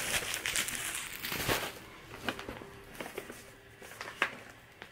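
Plastic bubble wrap crinkling as it is pulled and handled, with dense rustling for the first couple of seconds, then sparser crackles and a few sharp clicks.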